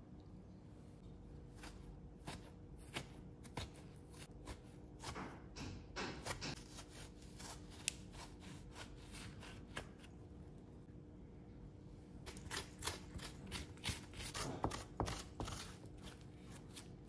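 A metal spoon scraping and scooping the soft flesh out of a halved eggplant, a quick run of short scrapes and clicks, in two spells.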